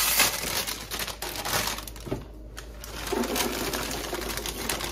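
Plastic snack bag of cheese puffcorn crinkling and rustling as it is pulled open, then, in the second half, the light corn puffs pouring out and rattling into a large bowl.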